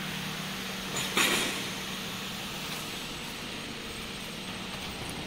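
Steady machinery hum and noise in a factory workshop, with one short, loud hiss about a second in.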